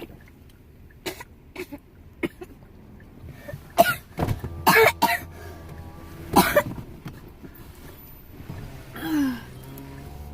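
A person coughing after gulping water, in a short fit of about four harsh coughs between four and six and a half seconds in, then a brief falling voiced sound near the end.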